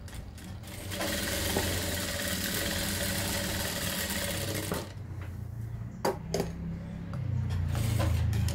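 Industrial flatbed sewing machine running a steady burst of stitching through cotton fabric, starting about a second in and stopping just before the middle. A few sharp clicks follow.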